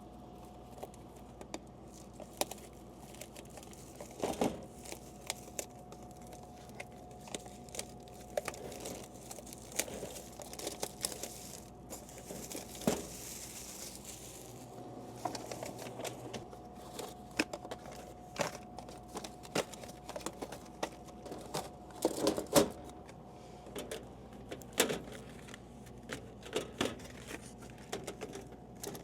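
Plastic snack bags crinkling and rustling, with scattered light clicks and knocks as items are handled during a vending machine restock. A faint steady hum runs underneath.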